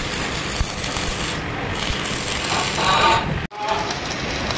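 Stick (shielded metal) arc welding on steel: the arc gives a steady crackle and sizzle, broken off for an instant about three and a half seconds in.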